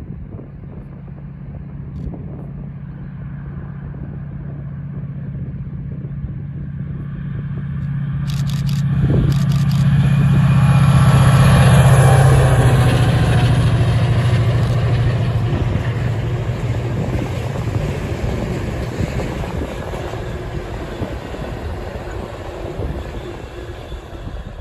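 Class 68 diesel locomotive passing under power, its Caterpillar V16 engine giving a steady low drone. The sound builds to its loudest about halfway through, then drops slightly in pitch and fades as the locomotive moves away.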